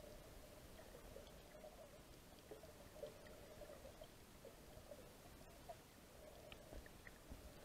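Near silence: faint muffled underwater ambience with a few scattered small clicks.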